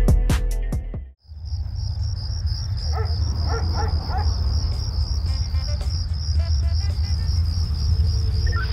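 Music with a beat cuts off about a second in. It gives way to crickets chirping steadily in a fast, even pulse over a low rumble.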